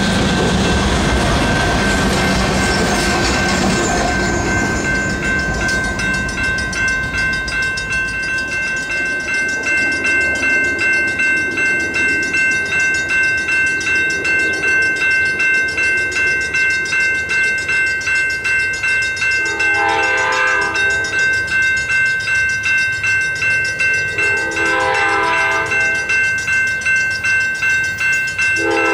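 Locomotives rumbling past and fading away over the first few seconds, then a grade-crossing warning bell dinging steadily at a quick even pace. Over the bell an approaching Amtrak P42DC locomotive sounds its horn in two long blasts, with a third starting just at the end: the horn signal for a grade crossing.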